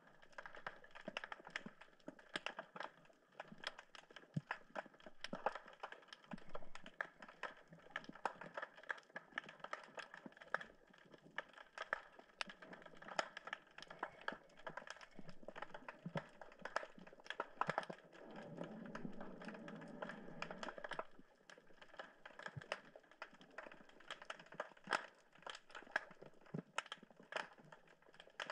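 Underwater crackle of snapping shrimp: a dense, irregular stream of sharp clicks. A low rumble joins in for a couple of seconds about two-thirds of the way through.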